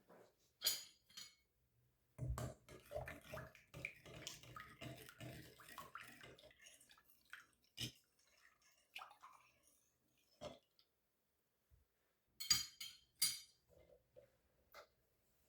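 Quiet kitchen handling sounds: a few seconds of water splashing, then scattered knocks and bright clinks of dishes, with a sharper clatter near the end.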